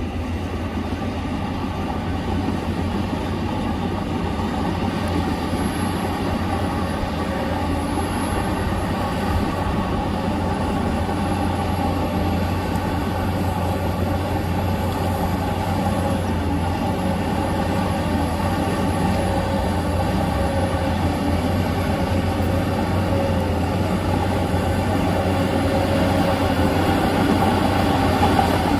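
Heavy diesel earthmoving machine running steadily under work, a deep engine drone that grows slightly louder over the span.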